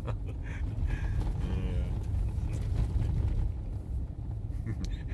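Steady low road and engine rumble inside a vehicle driving on snow, with the traction control working as the wheels slip.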